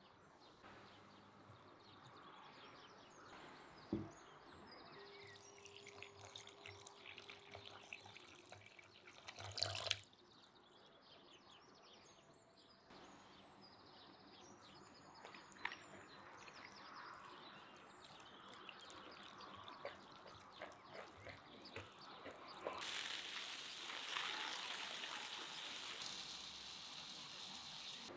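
Quiet food-preparation sounds: scattered knocks and clatters of handled utensils, with liquid pouring or trickling and a denser rustling hiss near the end.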